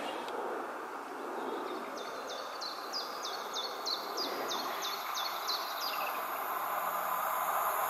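A songbird repeating one short, high, falling whistled note about three times a second for a few seconds, over steady outdoor background noise. Near the end, the hiss of an approaching train on the main line begins to rise.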